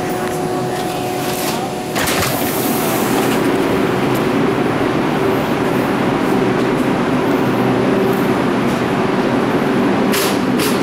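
R142 subway train coming to a stop at a station, a steady whine that ends about two seconds in with a knock. Then a louder steady rumble and hiss from the train standing at the platform, with two sharp clicks near the end.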